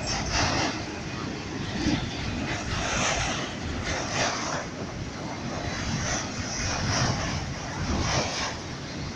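Freight train passing with a steady rumbling roar and no horn.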